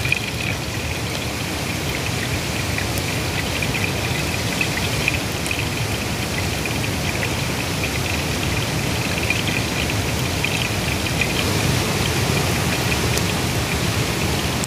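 Oil sizzling and crackling steadily around a whole masala-coated fish shallow-frying on a cast-iron dosa tawa.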